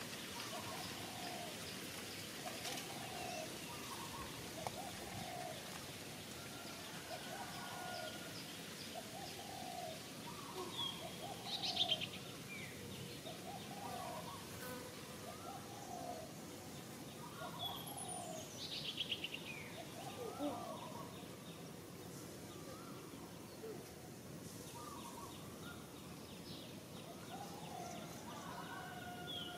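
Birds calling in the forest: a short low note repeated about every second and a half. A bird gives a fast falling trill twice, the loudest sounds here, over a steady background hiss of insects.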